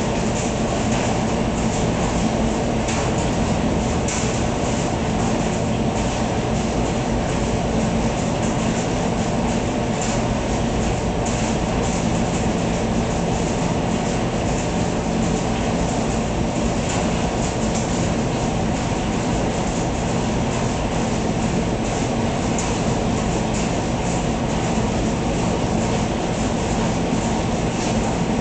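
Commercial tumble dryer running: a steady drum rumble and motor hum, with irregular light knocks and clicks from the tumbling load.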